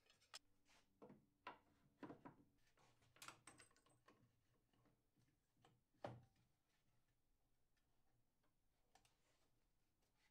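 Faint, irregular clicks and taps of a small wrench and bolt hardware being handled on wooden telescope truss blocks, with a sharper knock about six seconds in.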